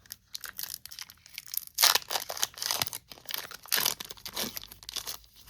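Foil Pokémon booster pack wrapper being crinkled and torn open: a run of irregular crackly rips and rustles, loudest about two seconds in and again near four.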